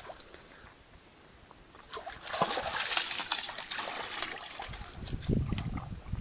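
A Belgian Shepherd puppy's legs splashing as it wades through shallow lake water. The first two seconds are quiet, then a burst of splashing and sloshing follows, with a few low thuds near the end.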